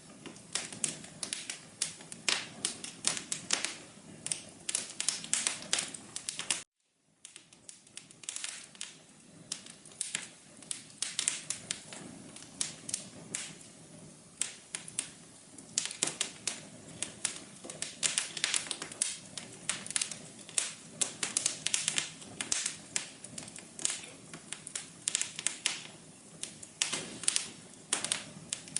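Fireplace fire crackling: dense, irregular pops and snaps over a soft low hiss. The sound cuts out completely for a moment about seven seconds in, then the crackling resumes.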